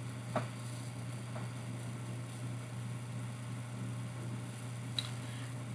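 Steady background hiss with a low hum, the recording's noise floor, with a few faint clicks about half a second in, about a second and a half in, and near the end.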